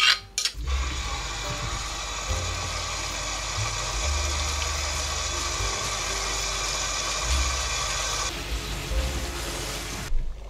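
Kitchen tap running steadily onto fiddlehead ferns in a stainless-steel colander as they are rinsed by hand. The water starts about half a second in, thins near the end and is shut off just before the end.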